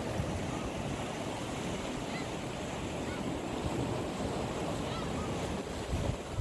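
Sea waves washing against a rocky shore, with wind buffeting the microphone; a steady rush without break.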